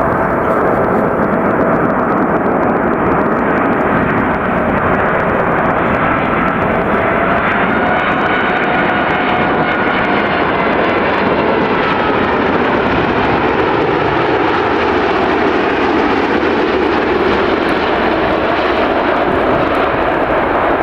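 Boeing 747's jet engines running loud and steady, a dense rush of noise with faint whining tones that drift slowly in pitch.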